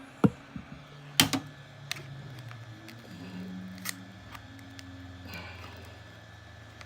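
Sharp clicks and taps of hand tools working at a phone's glued glass back panel, with the loudest click about a quarter second in and a quick cluster just after a second. A low steady hum runs underneath.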